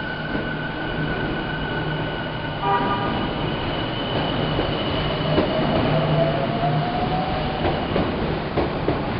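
Odakyu Romancecar EXE (30000 series) electric train pulling out of the station over a steady rumble, with a sudden sharp sound about three seconds in. Its motors then give a whine that rises in pitch as it gathers speed, and a few wheel clicks come near the end.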